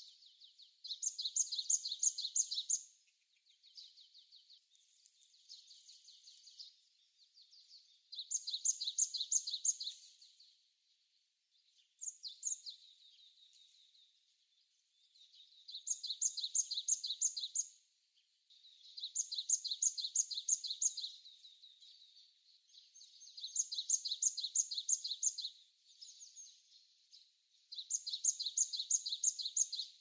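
Japanese tit singing: bouts of quick, high repeated notes, each about two seconds long, coming roughly every three to four seconds, with softer notes in between.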